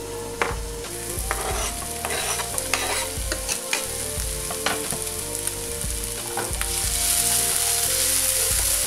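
Onion, grated carrot and garlic sizzling in olive oil in a non-stick frying pan as the carrot is tipped in and stirred. A slotted spatula knocks and scrapes against the pan now and then. The sizzle grows louder near the end.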